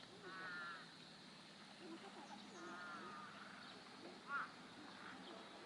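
Birds calling at a harbour: two short, harsh, crow-like calls, then a sharper rising call about four seconds in. A low steady hum sits under them.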